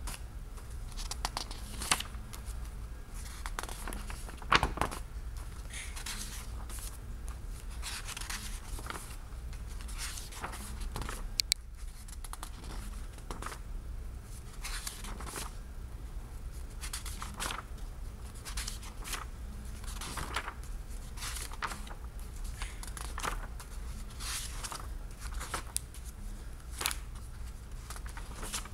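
Pages of a thick book being turned one after another, each turn a short papery rustle, with one sharp click a little past eleven seconds.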